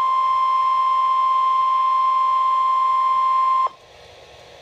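NOAA Weather Radio 1050 Hz warning alarm tone, one steady single-pitch tone that cuts off suddenly about three and a half seconds in, leaving the faint hiss of the radio receiver. The tone signals that a weather warning message is about to follow.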